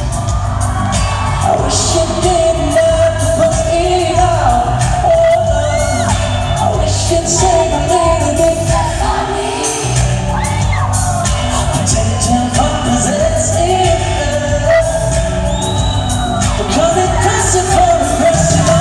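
Live pop concert: a singer's voice over a loud amplified band with a heavy, steady bass, playing without a break.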